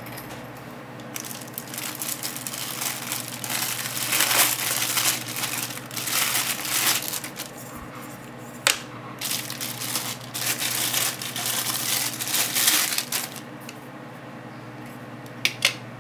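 Clear plastic bag crinkling and rustling in irregular bursts as it is worked off a camera lens by hand, with a sharp click about halfway through. The crinkling stops a couple of seconds before the end, and two quick clicks follow.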